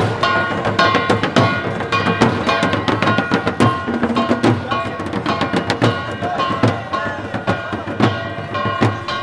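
Devotional music with fast hand-drumming and sharp percussive strikes over sustained steady tones.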